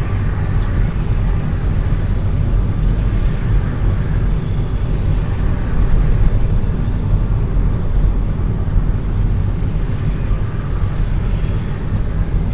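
Steady low rumble of road and engine noise from a car driving along a city street, heard from inside the car.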